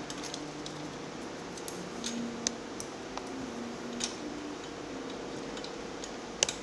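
Light metallic clicks and taps, a few seconds apart, as a Bb trumpet's piston valve is slid into its valve casing and turned to seat its valve guide in the groove, over a steady faint hum.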